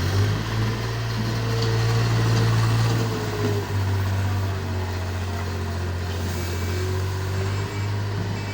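An engine running steadily with a low hum, louder for the first three seconds, then settling slightly lower.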